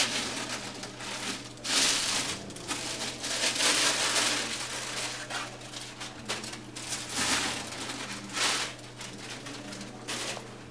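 Protective packaging crinkling and rustling in irregular bursts as it is pulled off the filter components.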